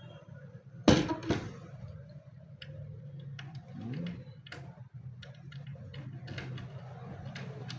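A sharp knock about a second in, then a scatter of light clicks as a key is worked in a newly fitted cabinet drawer lock to test that it locks.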